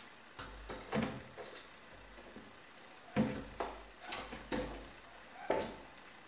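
A floating shelf board being pushed onto the steel pins of its wall brackets: a series of about seven irregular knocks.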